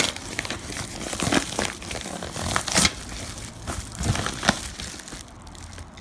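Packaging being unwrapped by hand: irregular crinkling and crackling, dying down near the end.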